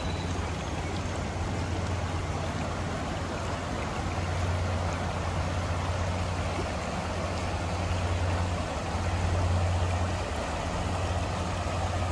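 Shallow creek water rushing over a rocky riffle: a steady rushing noise with a low rumble underneath.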